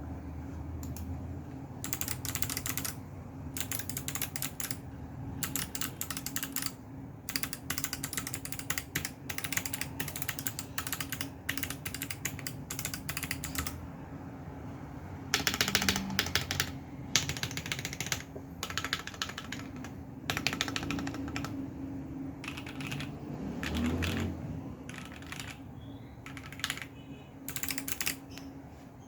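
A 980-layout mechanical keyboard typed on in quick bursts of key clacks with short pauses between them. Most keys are lubed and filmed Jwick Red linear switches, and the numpad has stock Kailh Box Crystal Jade clicky switches. The loudest burst comes about halfway through, over a steady low hum.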